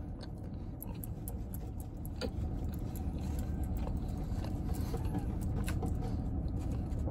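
Steady low rumble inside a parked car, with faint scattered clicks and rustles of chewing and a paper napkin being handled.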